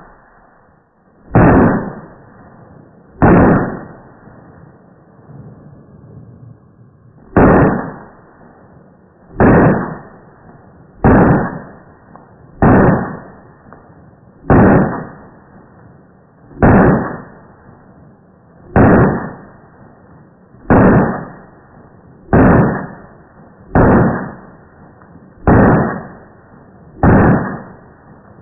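Gunshots fired one at a time in a steady string, about fourteen in all, mostly a second and a half to two seconds apart, with a longer pause after the first two.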